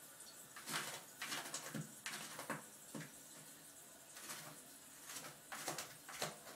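A cat scratching and digging in cat litter in a plastic toilet-training tray set on a toilet seat: a string of short, scratchy rustles at irregular intervals.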